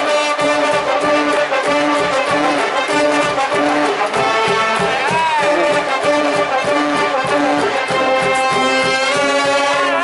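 High-school baseball cheering brass band, trumpets and trombones, playing a rhythmic fight song over a steady beat. A note bends down about five seconds in, and another falls off near the end.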